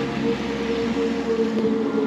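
Music with steady held tones, over a light rush of water.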